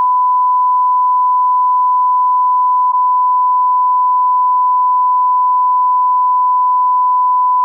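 A loud, steady 1 kHz sine test tone of the kind that goes with a television test card and signals an interrupted broadcast. It has one tiny break about three seconds in.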